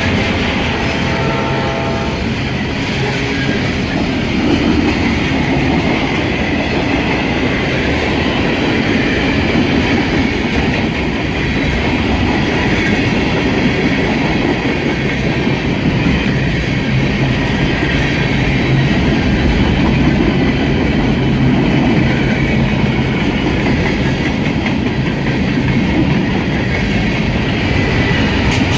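A long CSX mixed freight train rolling past close by: a steady, loud rolling noise of steel wheels on the rails, with a low hum that comes and goes. A horn-like chord sounds briefly at the start.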